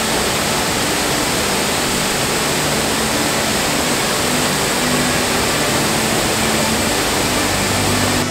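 Steady, loud roar of Sgwd yr Eira waterfall on the River Hepste, heard up close, with the river in full flow.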